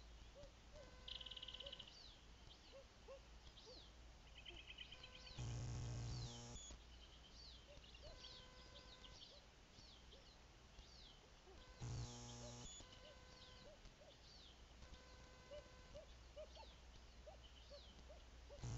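Faint chirps and trills of small birds run throughout. Twice, about five and a half and twelve seconds in, a short electronic buzz of camera noise starts and stops abruptly; these buzzes are the loudest sounds.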